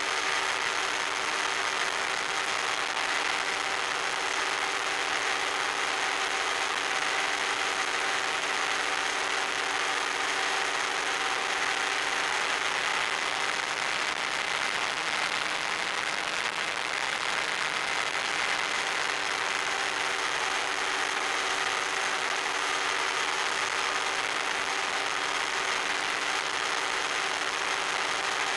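Electric motor and propeller of an FPV model plane running at a steady cruise speed, heard from on board as a constant drone under a steady hiss.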